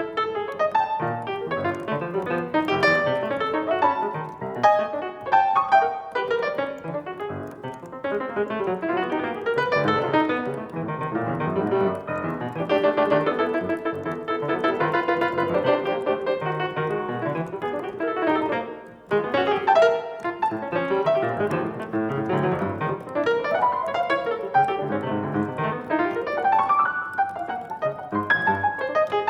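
Solo piano playing a dense, continuous stream of notes, with a brief break about nineteen seconds in and a rising run near the end.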